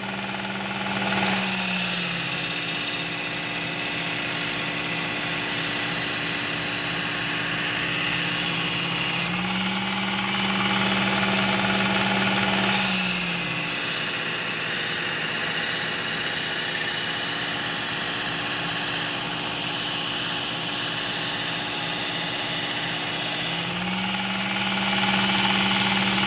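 Work Sharp Ken Onion Edition belt sharpener running with a Cubitron 120-grit belt. A steel blade is ground against the belt in two long passes, each a harsh grinding hiss with the motor hum dipping slightly under the load. The motor hums on its own briefly between the passes and again near the end. The grinding is raising a burr along the edge.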